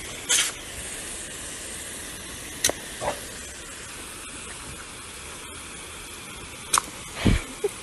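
Water hissing steadily from a pistol-grip garden hose spray nozzle, broken by a few short, sharp sounds near the start, about three seconds in, and near the end.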